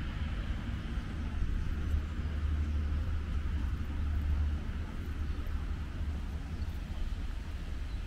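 Wind buffeting the microphone outdoors: a low, uneven rumble with a fainter steady hiss above it.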